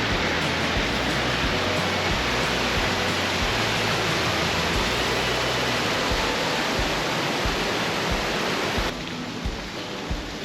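Rushing creek water swollen with spring runoff: a loud, steady rush that drops suddenly about nine seconds in. A low bass line of background music runs underneath.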